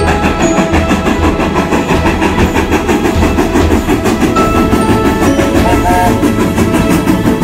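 Steam locomotive hauling a train of carriages past, its running sound mixed with background music.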